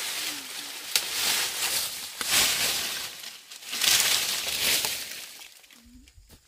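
Loud rustling and crunching in several swells of about a second each, with a couple of sharp ticks, fading out near the end.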